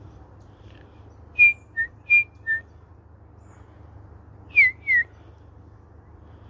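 A person whistling to call birds to the hand: two pairs of short, clear high-low notes about a second and a half in, then two short falling whistles about four and a half seconds in.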